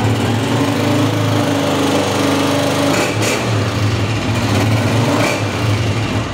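Honda CG 125 motorcycle's single-cylinder four-stroke engine running steadily at idle.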